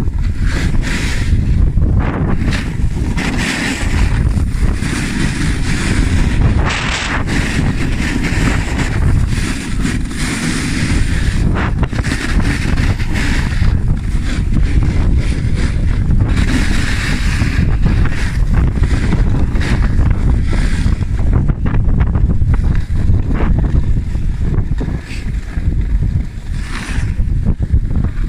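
Wind buffeting the phone's microphone with a heavy rumble while skiing downhill, with the hiss of skis on packed snow swelling and fading every second or two.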